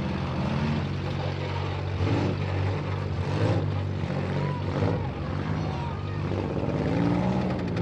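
Engines of several front-wheel-drive demolition derby cars running together in a steady drone, with some revving.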